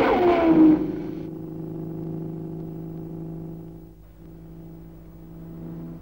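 Cartoon car sound effect: a loud falling-pitch sweep as the car speeds off, then a steady engine drone.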